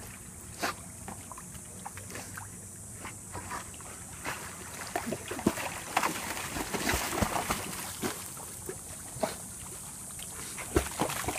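Water splashing and sloshing in a small dog pool as a German shepherd plays in it, with irregular splashes that get busier about halfway through.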